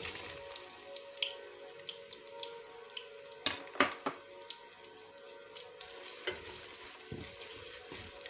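Sliced onions sizzling and crackling in hot red palm oil in a stainless steel pot, with frequent sharp pops as they fry. They are stirred with a wooden spoon, and a few louder knocks come about three and a half to four seconds in.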